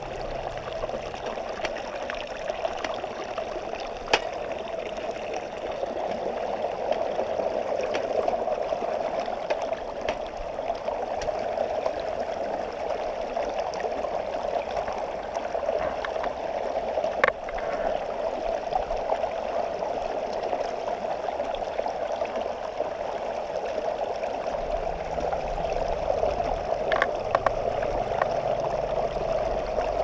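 Steady rush of a shallow rocky river, with a few brief light clinks of metal camp cookware being handled.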